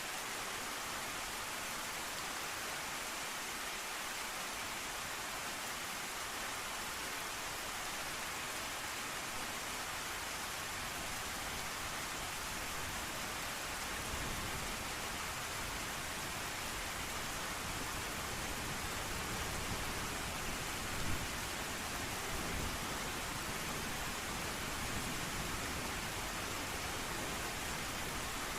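Steady, even hiss of heavy rain. About halfway through, a low rumble of thunder comes in underneath and continues, swelling briefly later on.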